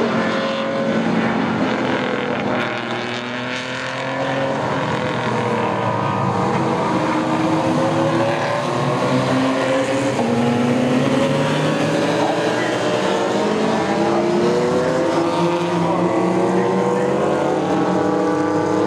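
Several race car engines running hard at once as a field of sports prototypes and saloon cars goes through a corner, their pitch repeatedly rising and falling with acceleration and gear changes.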